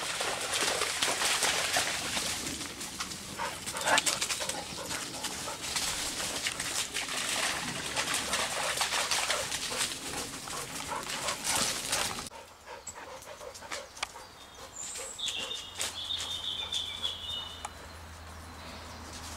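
Water rushing in a shallow stream while a dog moves and splashes through it, with scattered clicks and knocks. About twelve seconds in the water sound cuts off suddenly. A little later a dog gives one short, high whine lasting about two seconds.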